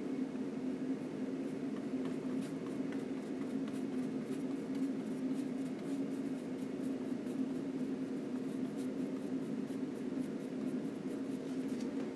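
A steady low hum underneath faint, quick scratchy ticks of a long flat brush stroking oil paint onto a linen panel.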